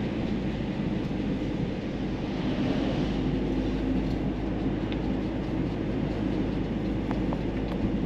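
Steady road and engine noise heard inside a moving car's cabin: a continuous low rumble of tyres and engine at cruising speed.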